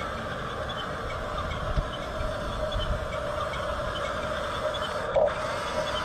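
Hunia 1569 RC bulldozer running: a steady whine from its small electric motors and gears, with faint regular ticking. There is a short knock about two seconds in and another about five seconds in.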